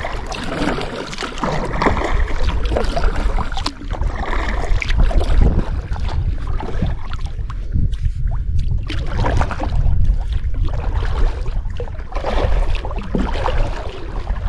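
Kayak paddle strokes splashing in the water and water washing along the hull, with irregular small splashes and knocks over a steady low rumble.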